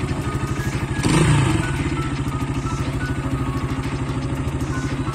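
GPX Legend 150S motorcycle's single-cylinder engine idling with an even, fast pulse, briefly louder about a second in.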